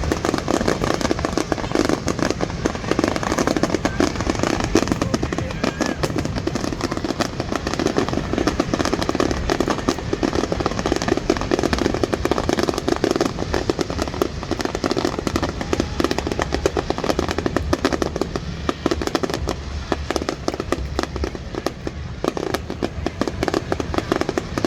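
Fireworks display going off continuously, a dense unbroken run of crackles and pops with no pause.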